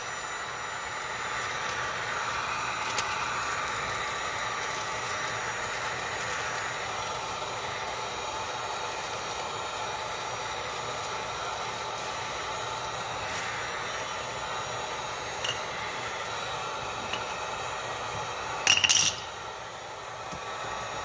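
Handheld heat gun running steadily, blowing hot air onto the old caulk behind a granite backsplash to soften it. A few small clicks, then a brief clattering crackle near the end.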